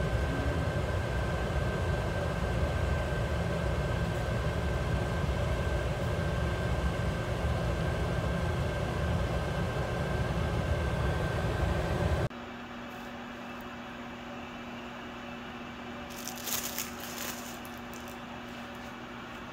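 Pet drying cabinet's blower running steadily, a loud rush with a steady high whine, while a wet dog dries inside. About two-thirds through it gives way abruptly to a much quieter steady hum, with a brief rustle shortly after.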